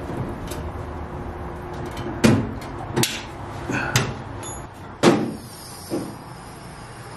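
A series of knocks and clunks from the plywood lid and aluminum frame of a pop-up rooftop tent being handled and set down, about five in all, the loudest about two seconds in and about five seconds in.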